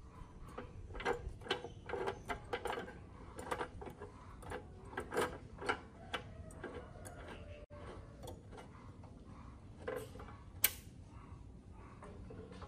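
Metal clicks and rattles from a square steel tube being set into a cut-off saw's vise and the vise screw being turned to clamp it, with one sharp click near the end.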